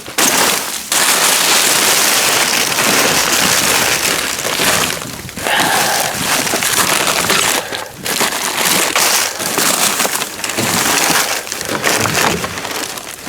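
Plastic garbage bags and trash rustling and crunching loudly, with brief pauses, as someone digs through a dumpster.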